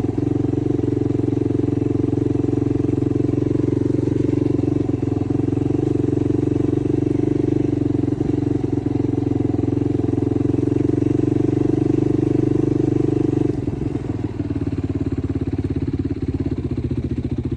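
Yamaha YFZ450R ATV's single-cylinder four-stroke engine running at a steady speed, then easing off about three-quarters of the way through to a quieter, lower, pulsing beat.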